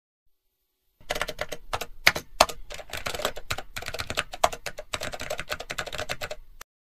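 Keyboard-typing sound effect: a rapid, uneven run of key clicks that starts about a second in and stops just before the end.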